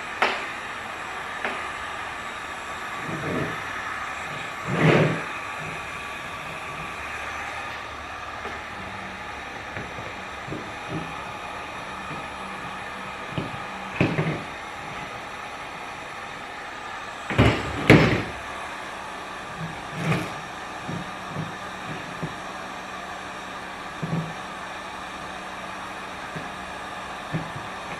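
Scattered knocks and handling noises from a plastic dirt bike number plate as a vinyl graphic is pressed and smoothed onto it, over a steady background hum. Two of the knocks come close together about two-thirds of the way through.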